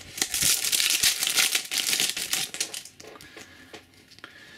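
Foil trading-card booster pack wrapper crinkling as it is torn open, a dense crackle for about three seconds, then a few soft clicks as it dies away.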